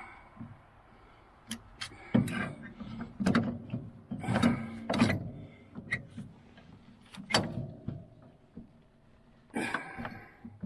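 Irregular metal clanks and knocks as the center mounting pin of a Sno-Way snow plow frame is worked back and forth in its bracket by its handle, with a few loud, briefly ringing knocks among quieter rattling.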